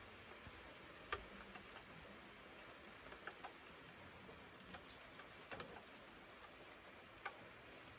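Light rain in eucalypt bush: a faint steady hiss with scattered, irregular sharp ticks of drops, the loudest about a second in and again near the end.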